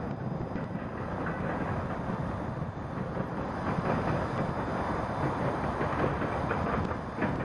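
Freight cars of a manifest train rolling past, a steady rumble of steel wheels on rail with scattered clicks.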